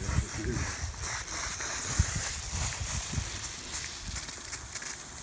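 Water hissing from a newly installed lawn sprinkler spray head while it runs, with irregular low thumps underneath.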